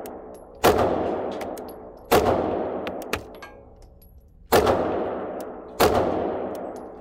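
Four pistol shots from a Sig Sauer P320, fired one at a time about one to two seconds apart, each with a long echo off the walls of the indoor range.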